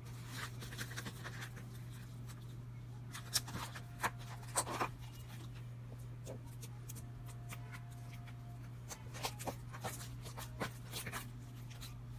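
Fingers poking and squishing slime, giving small crackling pops and clicks, with a cluster of louder snaps around four seconds in, over a steady low hum.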